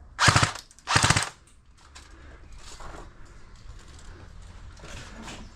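Airsoft gun firing two short full-auto bursts of rapid shots, the second about a second in, followed by fainter scattered clicks.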